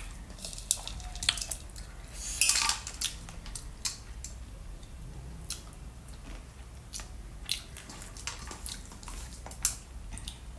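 Eating sounds of fruit being chewed and bitten: scattered, irregular sharp wet clicks and smacks.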